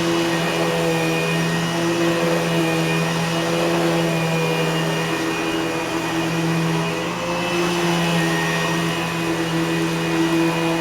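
Eureka Boss Smartvac 4870 upright vacuum cleaner running steadily, a constant motor hum with a steady whine over it.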